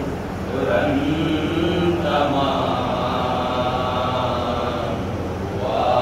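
A group of men chanting a devotional mourning recitation together: a reciter with his chorus of supporting voices. A single voice wavers in pitch near the start, then fuller voices come in about two seconds in, ease slightly near five seconds, and swell again at the end.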